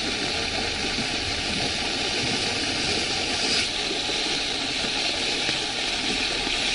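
Portable engine-driven water pump on a cart running steadily, pumping floodwater out of a waterlogged lane, with a steady hiss over it.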